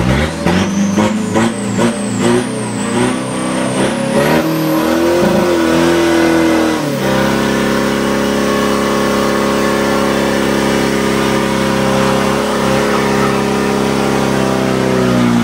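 Diesel Pro Street 4x4 drag truck engine revved hard in repeated blips, with a high whistle climbing in pitch over the first few seconds. About seven seconds in it settles into a steady, held high-revving note for about eight seconds, then cuts off abruptly.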